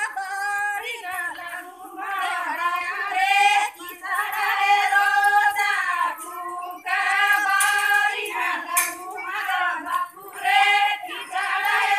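Women singing a Banjara devotional song (bhajan) without instruments, in long held phrases with short breaks between them.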